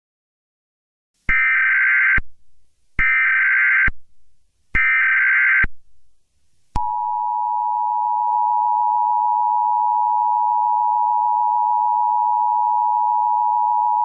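Emergency Alert System tones: three one-second bursts of SAME header data, about a second apart, then the steady two-tone EAS attention signal, which starts about seven seconds in and holds.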